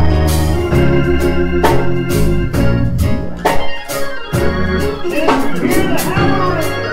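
Hammond-style church organ and keyboards playing sustained gospel chords over a slow drum-kit beat with cymbal hits.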